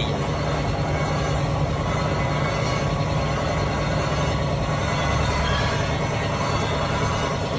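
Steady, loud rumbling background noise with a hiss, unchanging throughout.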